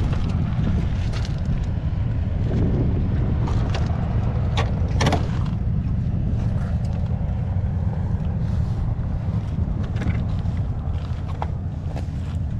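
An engine running at a steady idle, a low even rumble, with wind on the microphone and a few sharp clicks, the loudest about five seconds in.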